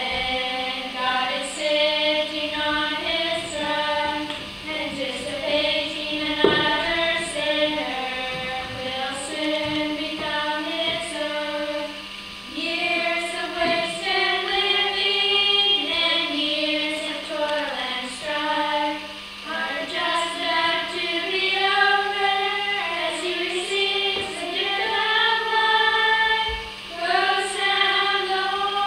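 A small group of boys' voices and a young woman's voice singing a song together, unaccompanied, in long held notes.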